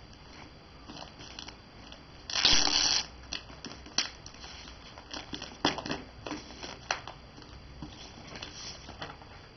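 Packing tape being torn and peeled off a cardboard shipping box, with scissors cutting through the tape and plastic crinkling. One loud rip lasting under a second comes about two seconds in, followed by shorter tearing sounds and sharp clicks.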